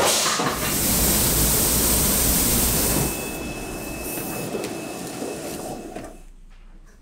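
Factory machine noise: a loud, steady rushing for about three seconds, then quieter mechanical noise with a faint steady high tone, fading near the end.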